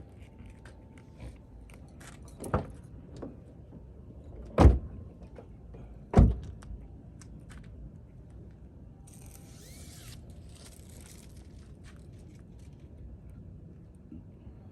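Three heavy thumps on a car, about two seconds apart, with light clicks and handling noises between them and a short hiss about nine seconds in.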